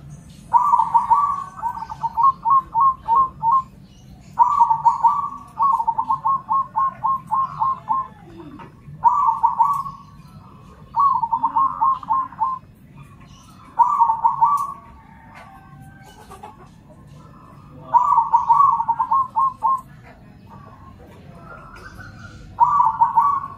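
Zebra dove (perkutut) cooing in repeated song phrases. Each phrase is a rolling coo followed by a quick run of short, clipped notes, about four or five a second, and seven phrases come one after another with short pauses between them.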